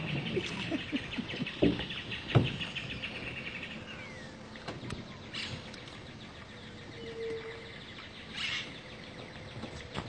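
Forest and wetland ambience: a fast insect trill for the first few seconds, two knocks about two seconds in, then a few short bird chirps.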